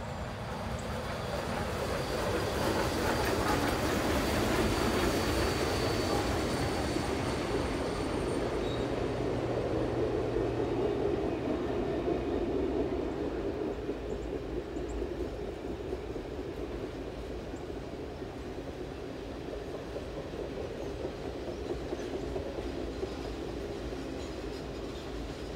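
Steam-hauled passenger train, led by Reading & Northern locomotive 2102, rolling across a stone arch bridge above: a continuous rumble of wheels on rail, loudest a few seconds in, then easing slightly and steady as the coaches follow.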